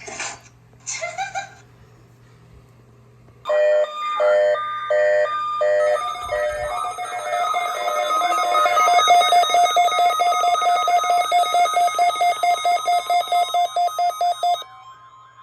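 Electronic weather-alert tones from a receiving device sounding for a marine warning: a few short beeps, then a continuous two-tone alarm that pulses rapidly for about eight seconds and cuts off sharply near the end.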